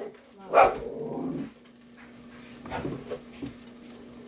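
A dog barking: one loud bark about half a second in, then quieter vocal sounds and a weaker bark near the end.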